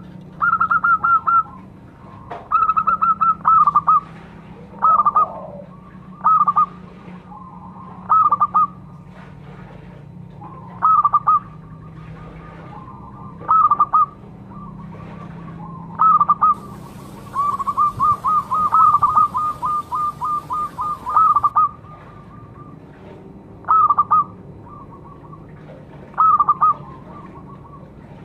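Zebra dove (perkutut) cooing: short bursts of quick staccato notes about every two to three seconds, with a longer unbroken run of notes past the middle.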